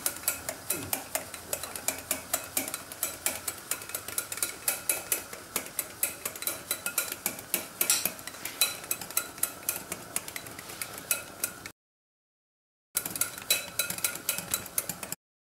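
Wire whisk beating dhokla batter in a glass bowl, its wires clicking against the glass about three times a second as Eno fruit salt is mixed in to make the batter rise. The sound cuts out to dead silence for about a second near the twelve-second mark and again just before the end.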